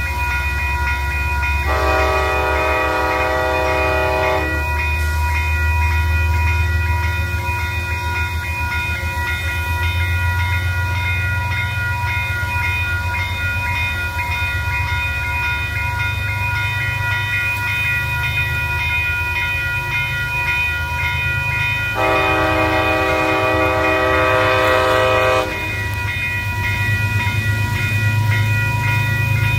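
A Metro-North train's diesel locomotive runs with a steady low rumble and a steady whine. It sounds its horn twice, each blast about three seconds long, the second about twenty seconds after the first.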